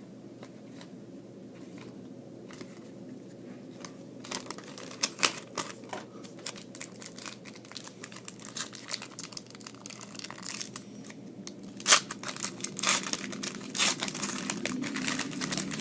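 Trading-card pack wrappers being torn open and crinkled while cards are handled, over a steady low hum. The crinkling sets in about four seconds in, and one sharp crackle near the end is the loudest.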